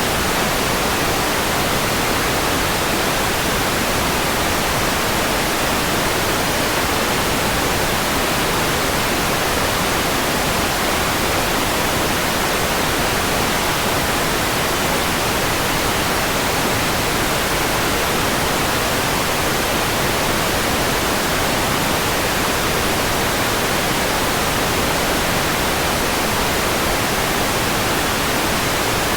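Generated white noise: a steady, even hiss across the whole range that never changes in level.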